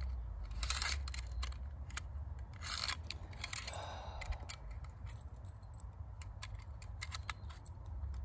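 Small metallic clicks and scrapes from a manual staple gun being handled, as a strip of staples is picked out of its overfilled magazine so the gun will close. The clicks come irregularly, with a few louder scrapes about one, three and four seconds in.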